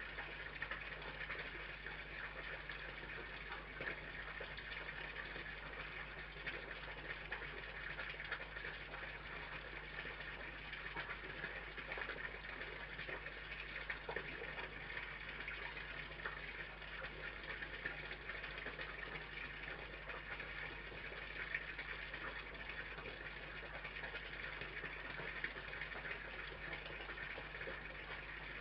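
Steady hiss over a constant low electrical hum, the self-noise of a security camera's built-in microphone, with faint small clicks now and then.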